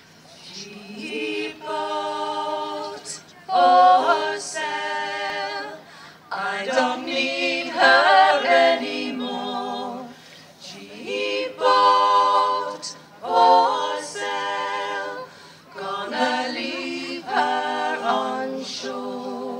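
Female shanty group singing a cappella in harmony, several voices together. The song goes in phrases of a few seconds with brief breaks for breath between them.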